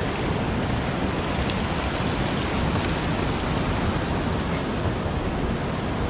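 Steady rush of river water running over rocky rapids.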